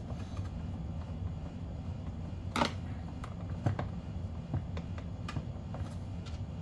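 Scattered light clicks and taps of a screwdriver and screws being worked into a plastic HVAC housing, the loudest about two and a half seconds in, over a steady low hum.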